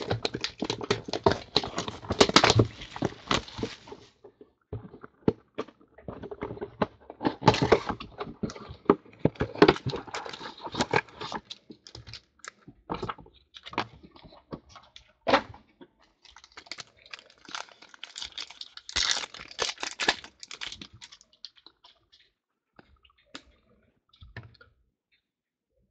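Crinkling and crackling of plastic wrap, cardboard and foil as a box of trading cards and its foil packs are unwrapped and torn open by hand. It comes in irregular bursts and goes mostly quiet over the last few seconds.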